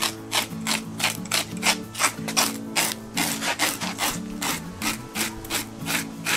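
Serrated fish scaler scraping scales off a halibut's skin on a wooden board, in quick, even strokes about four a second.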